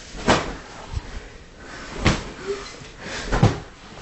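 Three sharp snaps of twisted towels being whipped in a rat-tail fight, spread across a few seconds, the last one with a heavier thud.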